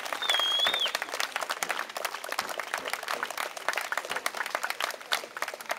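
Crowd applauding, a dense patter of many hands clapping, with a brief high whistle in the first second.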